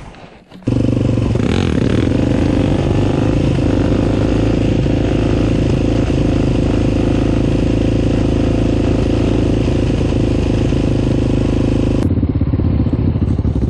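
Sport quad engine heard from a camera mounted on the moving ATV, running at a steady pitch while cruising. It starts abruptly just under a second in, and the high hiss drops away near the end.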